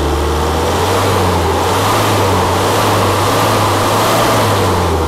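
The electronically injected turbodiesel of an Isuzu 3.5-ton truck being revved during an engine test. It rises early on, holds at raised revs and drops back toward idle near the end, sounding strong and powerful.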